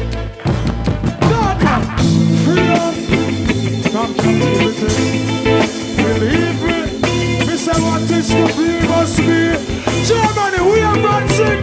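Live reggae band playing an upbeat groove with a steady bass line.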